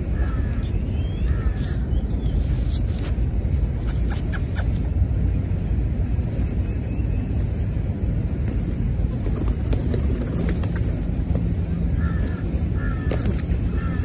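Crows cawing in short runs, once about a second in and again near the end, over a steady low rumble, with scattered sharp clicks.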